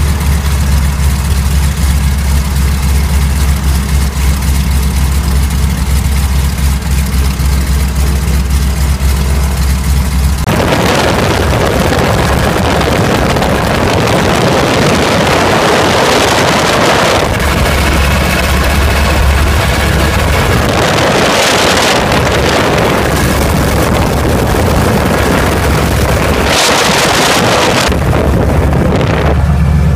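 Pratt & Whitney R-985 nine-cylinder radial aircraft engine running on the ground in a check run after a cylinder replacement. It runs steadily for the first ten seconds or so, then loud rushing wind noise on the microphone swamps it for a few seconds, and twice more later.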